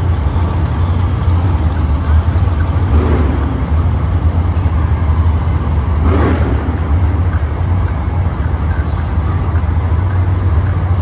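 Monster truck engines running in an arena, a loud steady low rumble that swells briefly about three seconds in and again about six seconds in.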